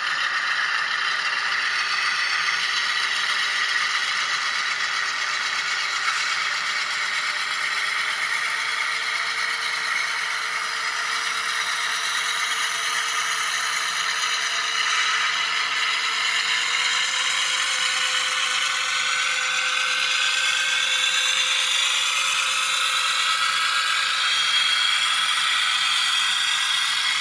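Recorded GE Dash 8-40C diesel locomotive engine sound played through the tiny speaker of an N scale model's ESU LokSound 5 Nano sound decoder, with a rattly, tinny character. The engine pitch steps up twice, about 8 and 16 seconds in, and a higher whine rises toward the end as the model gets under way.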